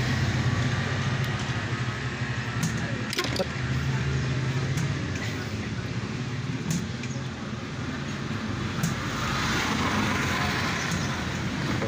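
Steady low mechanical hum in the background, with a few light clicks and taps from metal tools working on a CRT TV's circuit board.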